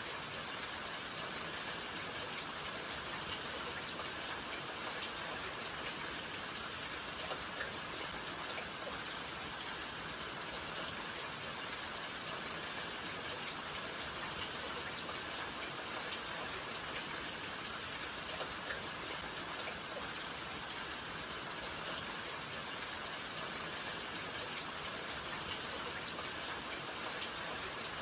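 Steady rain falling, an even hiss with scattered individual drops ticking on surfaces.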